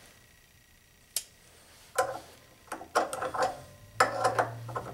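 Steel water-pump pliers clicking and clattering against a nut as they are set and reset on it: a single sharp click about a second in, then several short bursts of metallic clicks. The jaws are slipping on the nut.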